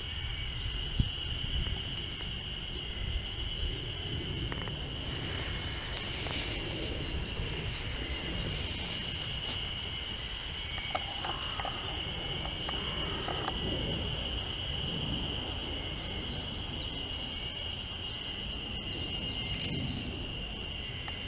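Steady high-pitched insect trill over a low background rumble.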